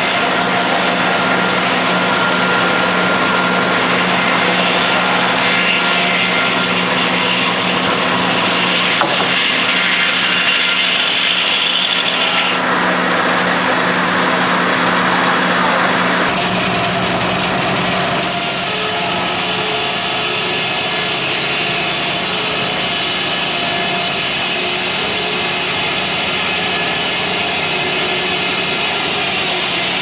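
Antique double-bladed circular sawmill running and cutting lengthwise through a log, a loud, steady whir of the spinning blades with the rasp of wood being sawn. The sound shifts in character about halfway through.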